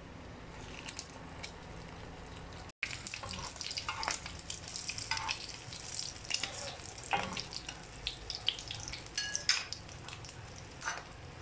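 Egg-coated chicken shami kebabs sizzling in hot oil on a flat griddle pan, with scattered spitting crackles. The sound cuts out briefly about three seconds in, and the crackling is busier and louder after that.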